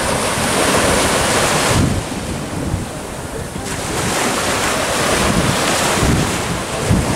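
Small waves breaking and washing up a sandy shore, with wind buffeting the microphone in gusts. The hiss of the surf dulls for a couple of seconds in the middle, then comes back.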